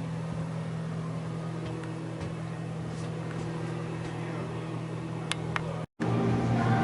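Steady low hum and background din of a busy exhibition hall, with faint distant voices and a couple of sharp ticks near the end. The sound cuts out for a moment just before the end.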